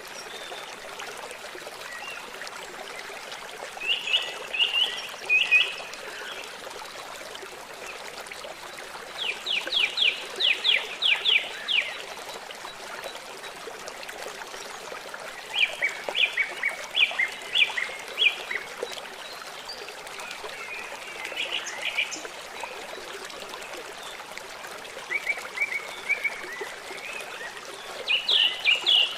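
A stream trickling steadily, with short bouts of rapid, repeated high chirping calls, several notes a second, breaking in every few seconds.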